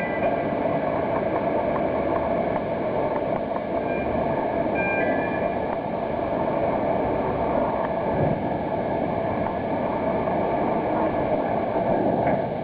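Steady mechanical running noise of a ship-to-shore container crane at work handling a container, with faint high whines about five seconds in.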